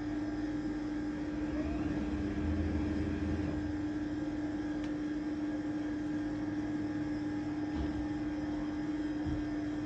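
Freezer vending machine humming steadily with one constant low tone while its mechanism fetches the ice cream, with a slightly louder low hum about two to three seconds in.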